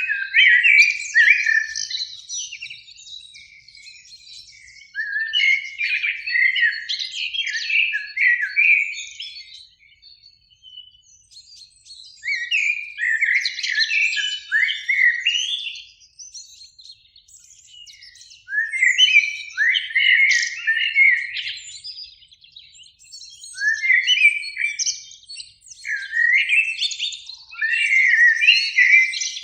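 Common blackbird singing: about five warbling song phrases, each a few seconds long, with short pauses between them.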